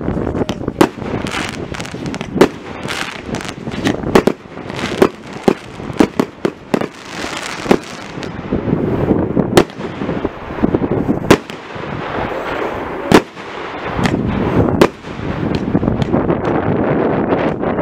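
Aerial fireworks bursting overhead: a long irregular run of sharp bangs, some single and loud, others in quick clusters of small pops, over a steady rumbling hiss.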